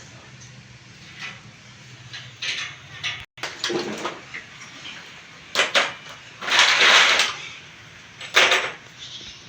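Scraping and knocking from work on a bed base: several short scrapes and bumps, with a longer scrape of almost a second about seven seconds in.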